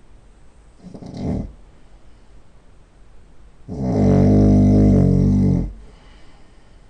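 A man snoring loudly in his sleep: a short snort about a second in, then a long pitched snore lasting about two seconds.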